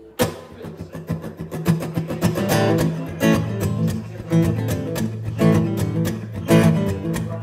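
Solo acoustic guitar strummed in a quick, steady rhythm over ringing low notes: the instrumental opening of the song.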